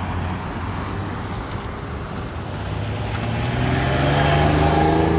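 Road traffic: a steady low traffic hum, with one motor vehicle's engine growing louder and rising in pitch as it approaches, loudest near the end as it passes.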